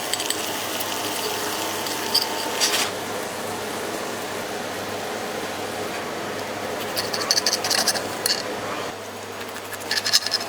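Food sizzling on a hot griddle, stopping about three seconds in. After that a steady low hum remains, broken by two short bursts of metal utensils clattering.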